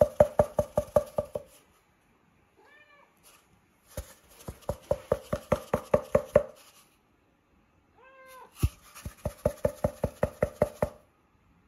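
Siberian cats vocalising: three runs of rapid, evenly spaced pulsed calls, about seven a second, with a short meow between each run.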